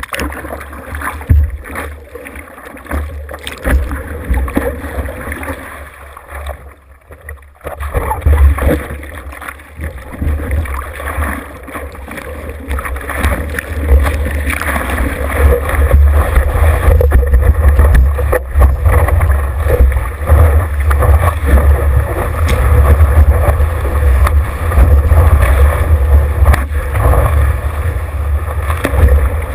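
Seawater splashing and rushing over the nose of a surfboard while the surfer paddles and then rides a wave. It is picked up by a camera mounted on the board, with a heavy low rumble of water and wind buffeting the microphone. It drops away briefly about seven seconds in and is louder and steadier from about halfway on.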